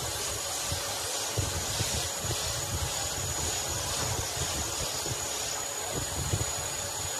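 Steady hiss with an uneven low rumble beneath it, and a few faint knocks as wooden frame parts and a bar clamp are handled.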